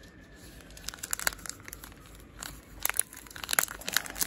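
Packaging being unwrapped by hand: irregular crackling rustles, sparse at first and thicker from about a second in.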